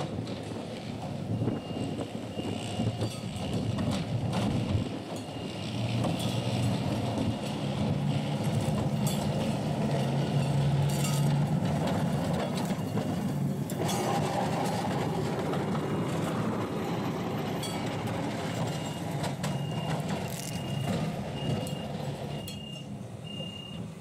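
Electric tram running on rails: a low hum from its motors with wheel and rail noise and a few sharp clicks, growing louder as it passes close about halfway through, then fading as it draws away. A regular short high beep repeats through the last few seconds.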